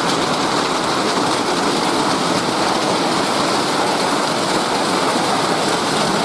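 Steady rain shower falling, coming down fairly hard as a dense, even hiss.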